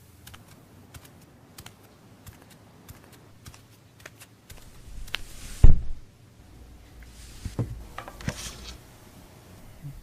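Scattered light clicks and taps, with one loud knock a little before six seconds in.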